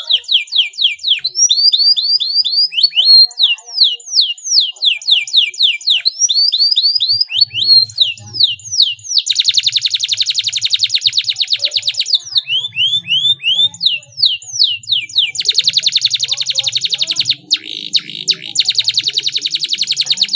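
Domestic canary singing: runs of quick, downward-sweeping whistled notes, broken by two long, tight rolls, very rapid even trills lasting several seconds each, the first about nine seconds in and the second from about fifteen seconds on.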